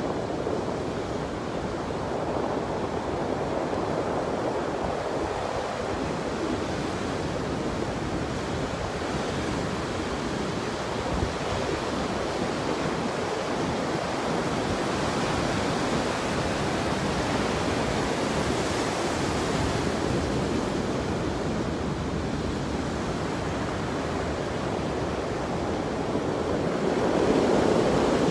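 Atlantic surf breaking heavily against the shore and seawall, a steady rushing wash of waves with wind buffeting the microphone. A wave surges louder near the end.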